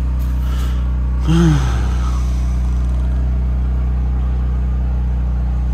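Steady, constant-pitch low hum of running diesel machinery. A short falling voice sound comes about a second and a half in.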